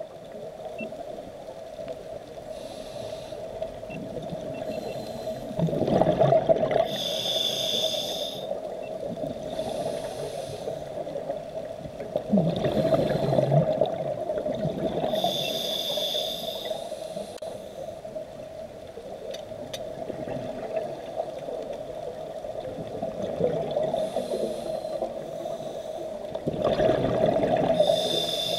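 Scuba diver breathing through a regulator underwater: a hiss with each inhale every few seconds, and gurgling bursts of exhaled bubbles, over a steady hum.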